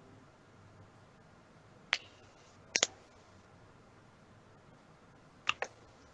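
Sharp, short clicks in three groups: a single click about two seconds in, a quick pair a little before three seconds, and another quick pair about five and a half seconds in, over faint room hiss.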